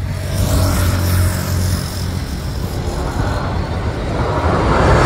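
Boeing 737 MAX 8's CFM LEAP-1B jet engines on final approach for landing, an approaching roar that grows steadily louder, swelling most near the end.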